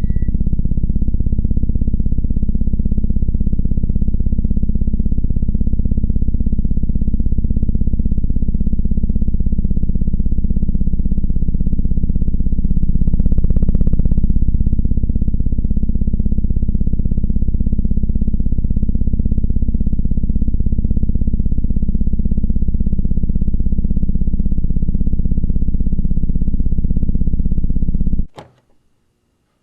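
Loud, low synthesizer drone holding steady, with a brief brighter swell about halfway through. It cuts off abruptly near the end.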